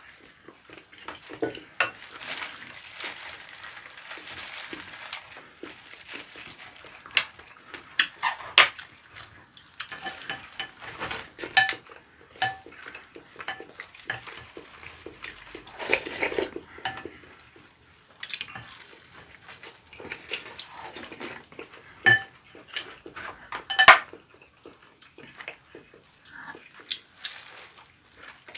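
Tableware sounds while eating: wooden chopsticks clicking and tapping on ceramic plates and bowls, with a few ringing clinks of dishes, and rustling as plastic-gloved hands pull apart boiled chicken.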